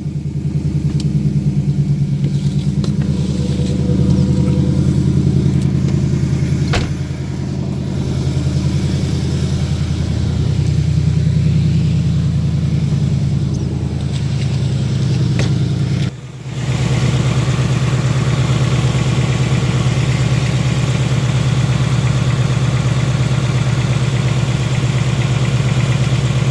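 2018 Ford Mustang GT's 5.0-litre Gen 3 Coyote V8 idling steadily just after starting, while being listened to for a faint engine tick; the owner hears something he can't identify and believes the tick is normal for this engine. The sound briefly drops out about sixteen seconds in.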